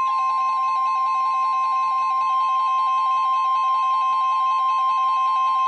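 NOAA Weather Radio warning alarm tone: a single loud, steady 1050 Hz tone, the attention signal that announces a warning broadcast. Here it announces a Winter Storm Warning. A fainter, wavering musical pattern runs beneath it.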